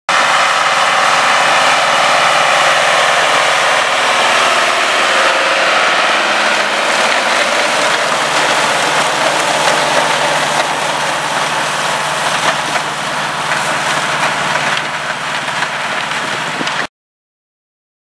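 Tractor engine running steadily while pulling a two-row potato haulm topper that shreds the potato foliage, a dense steady mechanical din. It stops abruptly near the end.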